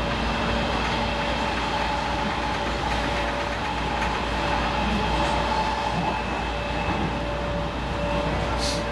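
Helsinki Metro M100 train heard from inside the carriage, running steadily: continuous rolling noise of wheels on track with a steady hum of a few held tones. A brief light click comes near the end.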